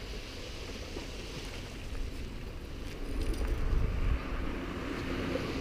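Wind buffeting a GoPro's microphone: a steady rushing noise with low rumbling gusts that grow stronger about three seconds in.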